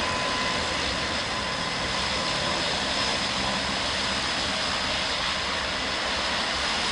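Airbus A320neo's CFM LEAP-1A turbofans at approach power as the airliner passes low on short final to land: a steady rushing noise with a thin high fan whine.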